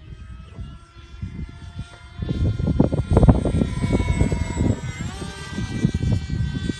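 Electric brushless motor and propeller of a scratch-built foam F-18 model jet whining as it flies past: the pitch creeps up as it approaches and drops sharply about five seconds in as it passes. A gusty low rumble on the microphone grows louder about two seconds in.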